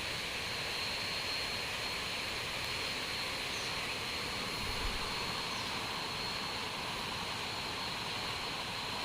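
Steady forest ambience: a continuous high-pitched insect drone, typical of cicadas, over an even hiss, with one faint low bump about halfway.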